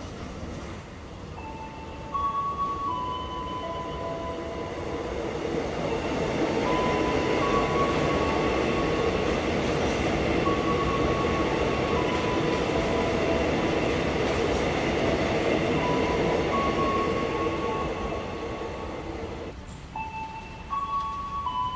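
A passenger train runs through the station, its running and rail noise building up and then fading away. Over it a slow chime melody of single held notes plays, stepping up and down about once a second.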